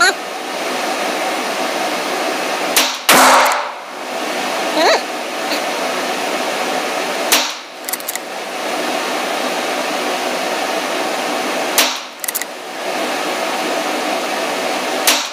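CZ 457 Pro Varmint .22 LR bolt-action rifle firing RWS Rifle Match, four sharp shots about four seconds apart, echoing in an indoor range lane. Under them runs a steady rushing noise.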